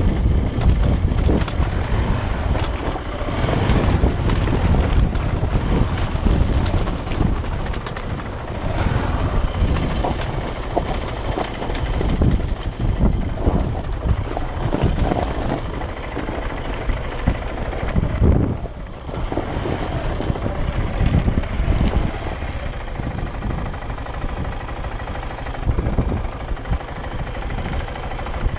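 KTM 690 Enduro R's single-cylinder engine running on the move, with frequent knocks and thumps from the bike over rough ground and wind on the microphone.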